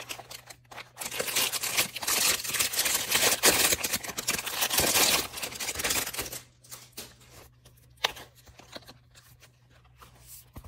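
Packaging rustling and crinkling as small stationery items are handled, dense for about five seconds starting a second in, then quieter with a few light clicks.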